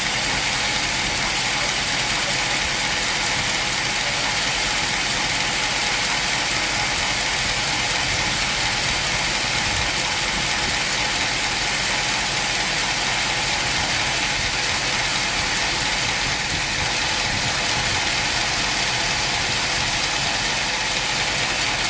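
Sawmill machinery running steadily: a continuous mechanical drone with a couple of held tones and a high noise over it, not changing through the stretch.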